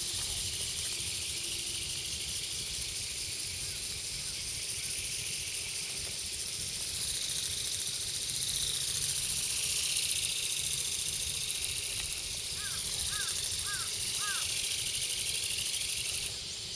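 Outdoor ambience: a steady high shrill of insects over a low wind rumble on the microphone. A short run of four quick chirps comes about three-quarters of the way through.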